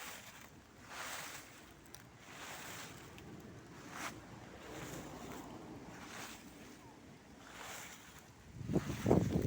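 Dry fallen autumn leaves rustling underfoot, a swish roughly once a second as someone walks through them. Near the end a louder low rumble comes in.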